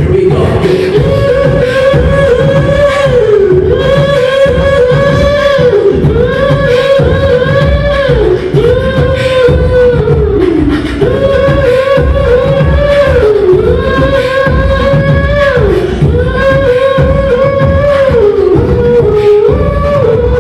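Live beatboxing through a PA, a steady beat of mouth-made kicks and snares, with a woman singing a repeating melody over it. Her short phrases dip in pitch at their ends.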